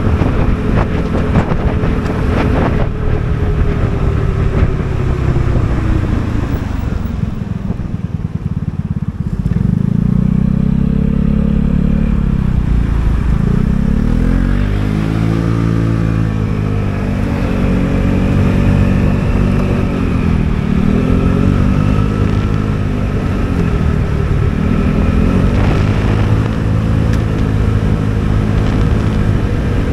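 Vespa GTS 300 scooter's single-cylinder four-stroke engine running on the move. Its note drops as the scooter slows over the first several seconds. From about ten seconds in it rises and falls in pitch several times as the throttle is opened and eased off.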